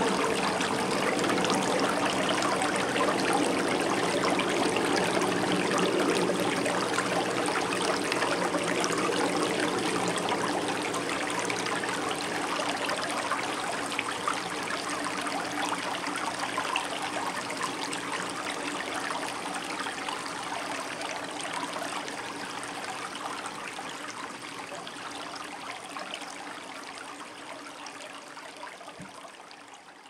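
Shallow stream running over a bed of cobbles and rocks, a steady rushing trickle of water. It fades out slowly over the second half.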